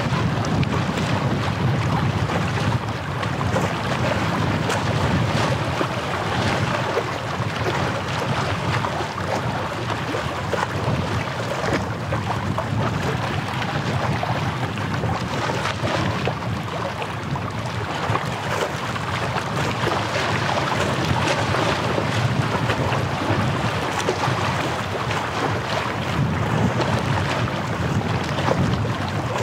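Wind buffeting the microphone in a steady, fluctuating low rumble, over the wash of small sea waves.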